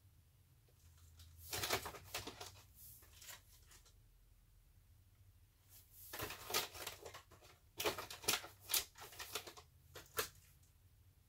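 Packaged goods rustling and knocking as they are shifted around in a packed cardboard box, with crinkly plastic wrappers and light clicks, in two spells: briefly about a second and a half in, then again from about six seconds to ten.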